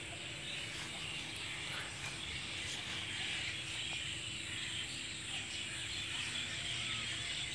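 Quiet outdoor ambience: a steady high hiss like insects chirping in the grass, over a faint low steady hum, with no distinct events.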